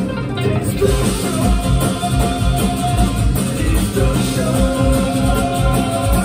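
A live band playing thrash metal crossed with bluegrass: electric guitars and banjo over a drum kit, with a steady kick-drum pulse.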